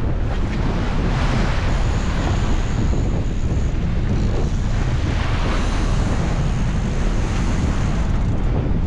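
Strong wind buffeting the microphone over the steady rush of sea water churning along the boat's hull.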